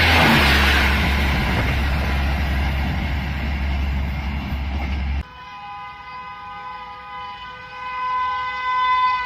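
The rushing, rumbling noise of express coaches passing close at speed, cut off abruptly about five seconds in. Then the long, steady horn blast of an approaching WAP-7 electric locomotive, several tones sounding together, growing louder near the end.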